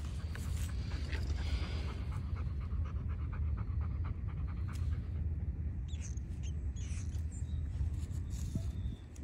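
A Bernese mountain dog panting quickly and evenly close to the microphone, over a steady low rumble.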